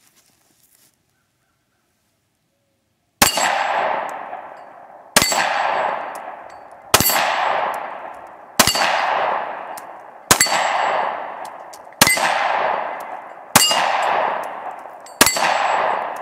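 Smith & Wesson M&P Shield 9mm pistol fired eight times, starting about three seconds in, at a steady pace of roughly one shot every one and a half to two seconds. Each shot is followed by a steel target plate ringing with a metallic clang that fades away.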